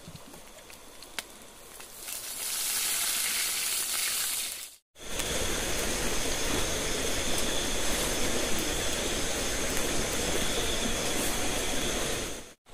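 Heavy rain pouring down in a steady rushing hiss, broken by abrupt cuts. It is quieter for the first couple of seconds, and the longest stretch carries a faint steady high whine over the rain.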